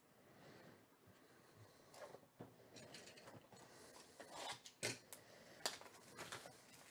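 A sealed trading-card box being cut and torn open by hand: faint rustling and crinkling of its plastic wrap and cardboard, with a few sharp crackles in the second half.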